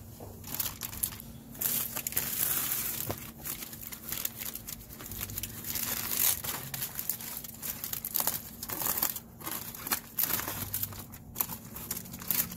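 Aluminium foil crinkling in irregular bursts as gloved hands unwrap and handle foil-wrapped racks of ribs.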